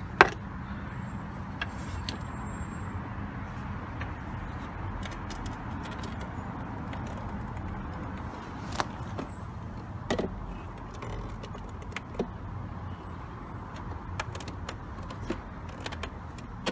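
A few sharp, scattered knocks of a hammer tapping a plastic sewer valve and pipe into place. The loudest knock is at the very start, and a double knock comes about ten seconds in. A steady low rumble runs underneath.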